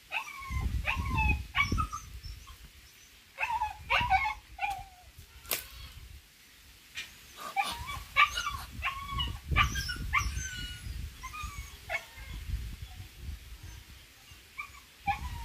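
Short, high-pitched animal cries, yelps and squeals in quick runs, with bursts of low rumbling noise between them and a sharp click about five and a half seconds in.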